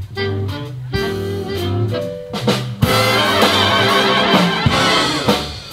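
Live big band of saxophones, trumpets and trombones with rhythm section playing a swing-style jazz blues. About three seconds in the full band comes in loud with the brass and cymbal crashes, then eases off near the end.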